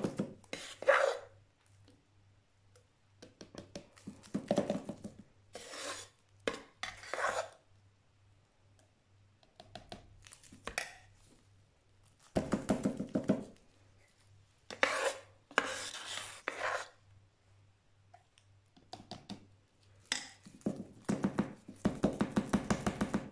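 Metal spoon scraping and scooping thick hot-process soap paste against the sides of a slow cooker's ceramic crock, in repeated bursts of rapid scraping and knocking a second or two long, with short pauses between.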